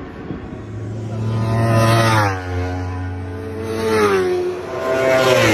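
Endurance racing superbikes passing at full speed one after another, each engine's high, revving note dropping sharply in pitch as it goes by: three passes, about two, four and five and a half seconds in.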